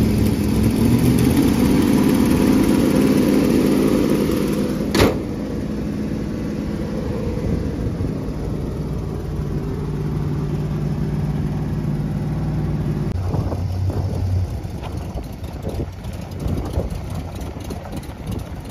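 1970 Plymouth Road Runner V8 on freshly installed Six Barrel triple two-barrel carburetors, idling steadily. There is one sharp click about five seconds in, and the engine note shifts lower about two-thirds of the way through.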